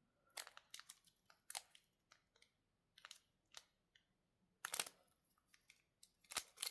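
Plastic wrapper being crinkled and pulled at by hand while trying to tear it open: faint scattered crackles and clicks, with a louder burst of crinkling about three-quarters of the way in and again near the end.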